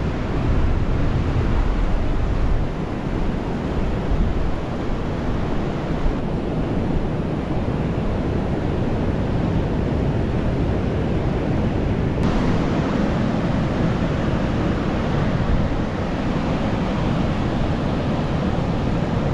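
Ocean surf washing onto a beach with wind buffeting the microphone: a steady, heavy rushing noise that changes abruptly twice.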